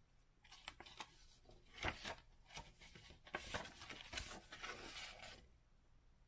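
A folded paper sheet is handled and opened out, giving faint rustling with a few sharper crinkles. The loudest crinkles come at about two seconds and about four seconds. The rustling stops about a second before the end.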